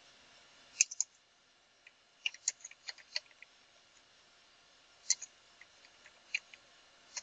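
Computer keyboard keys clicking as a command is typed, in short irregular runs with pauses: a couple of keystrokes about a second in, a quick run around two to three seconds in, then single keystrokes near the end.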